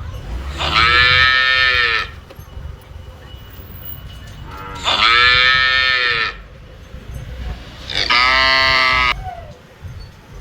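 Cow mooing three times, each moo a loud call of about one to one and a half seconds, with a few seconds' pause between calls.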